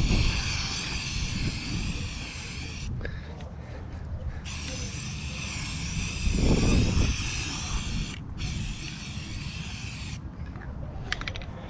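Aerosol spray paint can spraying in three long hissing bursts, each cut off sharply, the last two only a moment apart. Wind rumbles on the microphone underneath.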